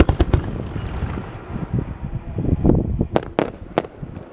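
Aerial fireworks going off: a cluster of sharp bangs at the start, then three loud, sharp cracks a little over three seconds in.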